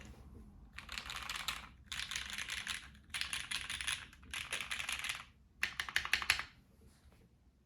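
Mechanical keyboard with lubed Cherry MX Black Ultraglide linear switches on an aluminium plate, with GMK keycaps, being typed on fast. There are four dense bursts of key clatter about a second each, then a short run of separate keystrokes, and the typing stops about a second before the end.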